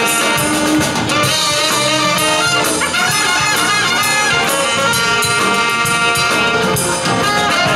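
Live rhythm-and-blues band playing, with a brass section of trumpet and trombone carrying the tune over guitar and drums.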